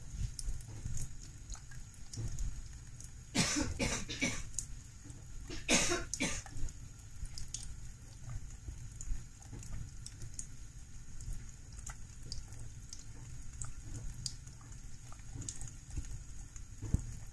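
Thin stream of water running from a kitchen tap into a sink while a cat laps at it, with faint scattered ticks. Two short, loud, cough-like bursts stand out, about three and a half and six seconds in.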